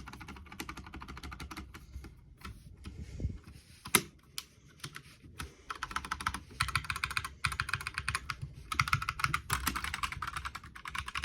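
Mechanical keyboard fitted with Holy Panda tactile switches being typed on in quick bursts of keystrokes with short pauses. One stroke about four seconds in is louder than the rest.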